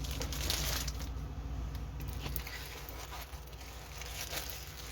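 Plastic packaging of a diamond painting kit rustling and crinkling as it is handled, busiest in the first second and lighter after. A steady low hum sits underneath.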